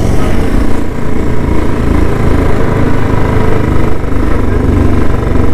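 Royal Enfield Bullet 350's single-cylinder engine running steadily at cruising speed, heard from the rider's seat with wind rumbling on the microphone.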